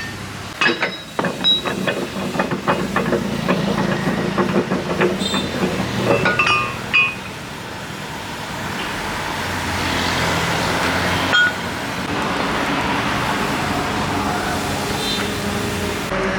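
Rapid metallic clanks and knocks, some ringing briefly, for about the first seven seconds, over a steady engine drone that carries on alone afterwards.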